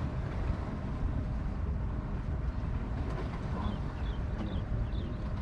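Wind buffeting the microphone over a low, steady rumble from a small fishing boat. A few faint short high chirps come in the second half.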